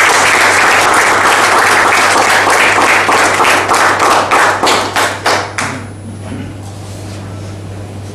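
Small audience applauding in a room, the clapping thinning to a few last separate claps and dying away about six seconds in.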